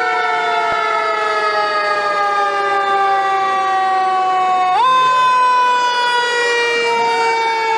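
Fire ladder truck's siren wailing, its pitch sliding slowly down, then jumping up sharply about five seconds in and sliding down again. A second siren tone climbs faintly near the end.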